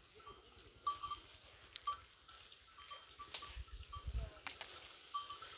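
Faint scattered rustling and clicks of dromedary camels browsing on shrubs, with a brief low rumble about three and a half seconds in.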